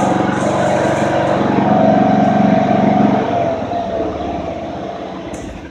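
Toro 1642Z zero-turn riding mower running, then shut off about three seconds in and winding down, with a faint whine that drops in pitch as it slows.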